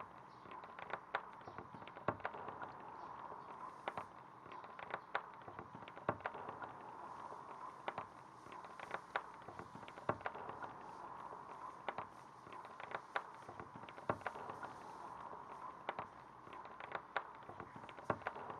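Irregular sharp pops and clicks, about one or two a second, over a steady hiss.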